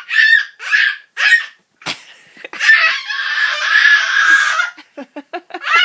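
A person laughing hard: a few short high-pitched bursts, then a long breathy, wheezing stretch, then quick short "ha" pulses near the end.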